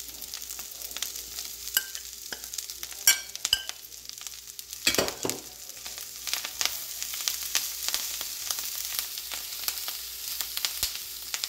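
Spiced tin fish and coconut mixture tipped into a frying pan of onions, chillies and curry leaves frying in oil and mixed in by hand: a steady light sizzle with many small crackles and scrapes, and a thump about five seconds in.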